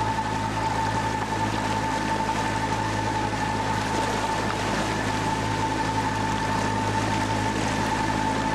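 Honda 75 four-stroke outboard running steadily under way, towing another boat, over the rush of its wake. The engine drones at an even pitch with a steady whine above it.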